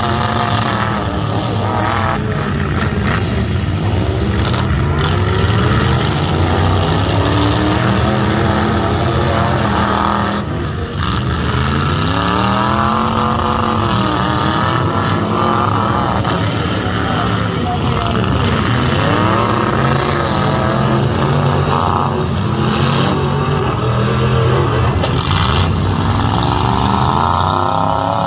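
Several demolition-derby pickup truck engines revving hard and dropping back, again and again, in overlapping rising and falling sweeps. They are loud throughout.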